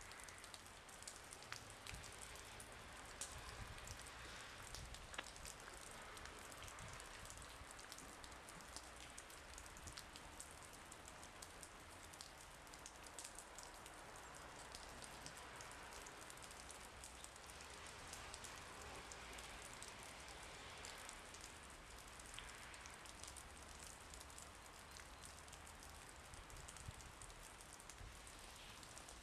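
Faint, steady hiss of light rain, with fine scattered pattering ticks and gentle swells in level.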